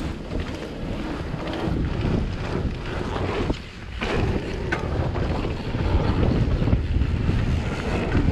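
Wind rushing over the microphone of a mountain bike riding fast down a dirt trail, with the rumble of the tyres on the ground and a few short knocks from bumps.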